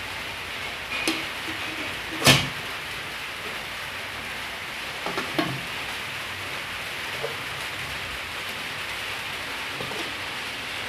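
Cookware being handled: a sharp metal clank about two seconds in, then softer clinks as a glass lid goes onto the rice-cooker pot and a stainless-steel pot lid is handled, over a steady hiss.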